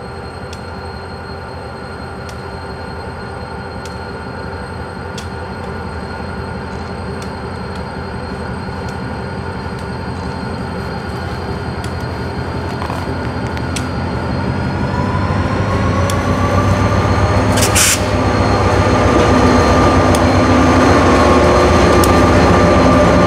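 Freight train's diesel locomotives approaching and passing close by, their engines growing steadily louder, with a steady whine that rises in pitch about two-thirds of the way through. A brief hiss sounds near the end.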